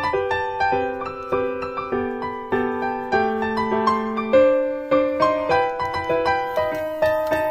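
Background piano music: a gentle melody of single notes over chords, each note struck and fading.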